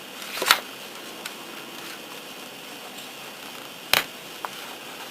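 Two sharp taps of small hobby tools on the work table, about half a second and about four seconds in, with a few fainter ticks over a steady low hiss.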